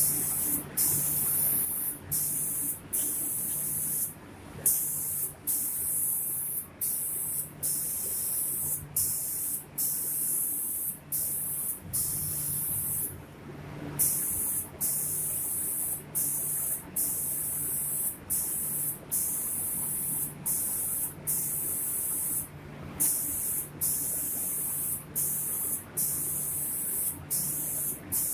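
Spray guns of an automatic door painting machine hissing in repeated bursts, each a little under a second long and cut by short breaks, over a steady low machine hum.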